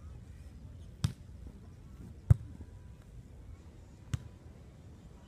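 A volleyball struck three times by hands and arms during a beach volleyball rally, sharp slaps about a second apart, the second the loudest.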